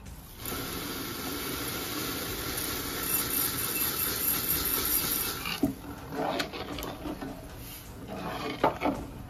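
Granulated sugar poured into a large pot of boiled milk, a steady hiss for about five seconds that stops suddenly. Then a few clinks and scrapes of a steel ladle stirring against the metal pot.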